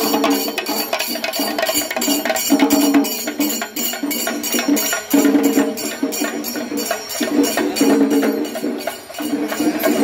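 Drum music beating a fast, steady rhythm of about four to five strokes a second, with a pitched phrase that comes back every couple of seconds.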